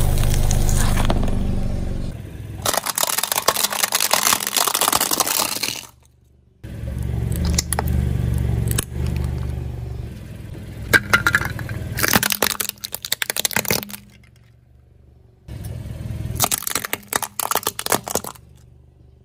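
A car's tyre rolling slowly over objects on concrete and crushing them: the engine runs low while the objects give way in runs of sharp crackling and snapping, in several short takes cut together.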